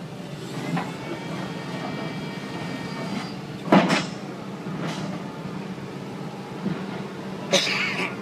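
Tescar CF6 mini piling rig running steadily while boring, with sharp knocks from the drilling gear; the loudest comes about four seconds in and another near the end.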